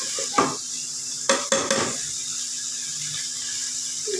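Metal spoon scraping and knocking against the inside of a steel cooking pot while stirring a thick potato and fenugreek curry, with several sharp strokes in the first two seconds.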